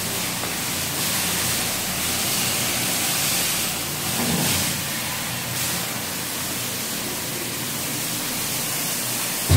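Steady rushing hiss of factory background noise, with a faint low hum under it and a brief rustle of handling about four seconds in.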